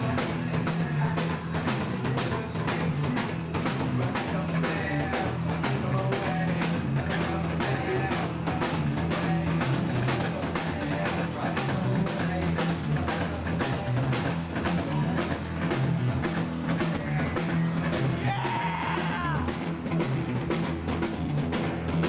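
Live rock band playing loud and without a break: electric guitars, bass and a drum kit pounding away, with a singer's voice in the mix.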